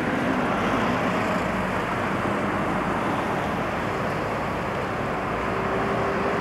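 Steady road and engine noise heard from inside a moving car: tyre rumble with a faint engine hum.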